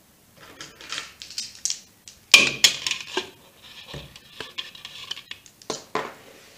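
Clear plastic measuring cup handled and knocked against a mixing bowl as vegetable shortening is pushed out of it: irregular crackles, scrapes and clicks, loudest about two and a half seconds in.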